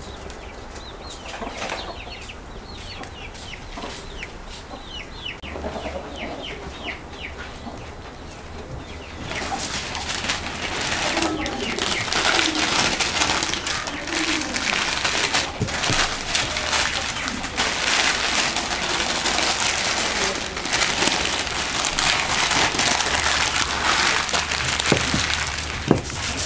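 Chickens clucking in the background. About nine seconds in, a loud, steady hiss with crackling sets in and continues.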